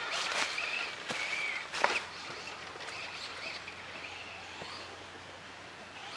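Radio-controlled Slash truck driving off over a dirt track: a wavering motor whine with a few knocks as it bounces, the loudest about two seconds in. It then fades, leaving faint bird chirps.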